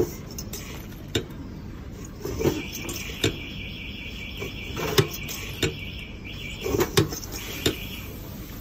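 Manual pin header cutting machine in use: sharp metallic clicks and snaps as pin header strips are fed through its toothed cutting die, with a steady high rattle from the turning rollers from about two seconds in to about six seconds and briefly again near the end.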